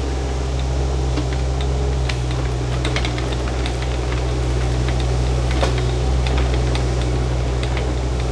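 Shantui mini excavator engine running steadily under load, with many scattered sharp clicks and cracks over it, most of them in the middle of the stretch, as it works a small tree and its roots.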